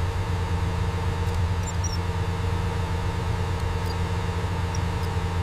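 Engine on a test stand running steadily: a continuous low mechanical hum with a faint steady whine above it. A couple of tiny high chirps come about a second and a half in.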